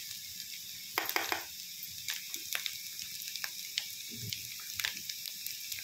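Oil sizzling steadily around boiled potato pieces and cumin in a kadhai, with a metal spatula clicking and knocking against the pan, loudest in a short cluster about a second in.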